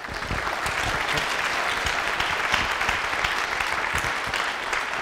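Audience applause: many people clapping, breaking out all at once and holding steady.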